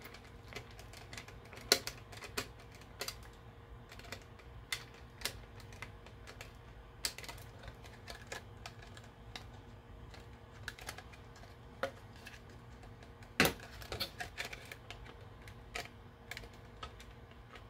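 Irregular small clicks and taps of hard plastic parts being handled and fitted together: a GPS mast mount with its screws being test-fitted onto a 3DR Solo drone. One sharper knock about three-quarters of the way through.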